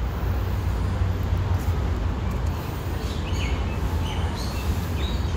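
Steady low rumble with short, high bird chirps starting about three seconds in.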